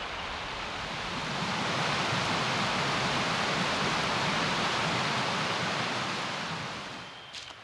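Rushing water of a river in a rapid, a steady noise that swells about a second in and fades away near the end.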